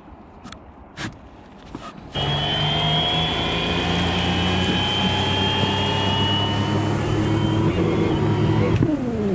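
Homemade electric outboard (brushless motor driving an old outboard leg's gearbox and propeller) spinning up suddenly after a couple of faint clicks. It runs under heavy load as a loud whine that sags slowly in pitch. Near the end it cuts out and winds down with a falling pitch: the controller shutting off as the half-charged batteries sag under the load of the worn, binding lower-unit gearbox.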